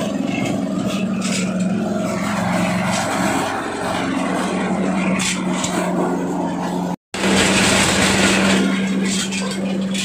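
Areca nut husking machine running steadily: a constant low hum under a rough, noisy churn as dried nuts are stripped of their husk. The sound drops out for an instant about seven seconds in, then carries on the same.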